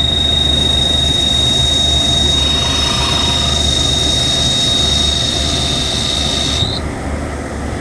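CNC turning lathe cutting Delrin with a trepanning (face-grooving) tool: a steady high-pitched whine over the machine's low hum. The whine cuts off sharply near the end.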